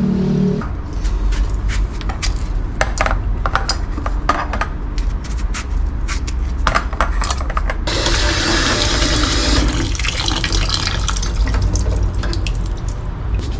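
Plantains being peeled with a knife over a stainless steel pot, with scattered sharp clicks and knocks. About eight seconds in, a kitchen tap starts running water into the pot in a stainless sink to rinse them, a steady splashing hiss that is the loudest sound here.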